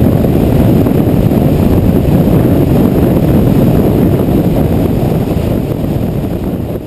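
Heavy wind rush buffeting the microphone of a 2012 Kawasaki Ninja 250R motorcycle at highway speed, with the bike's running noise under it; the sound begins to fade out near the end.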